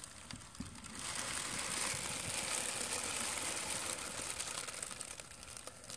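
Thin plastic bag crinkling and rustling as it is handled, a steady run of fine crackles from about a second in until near the end.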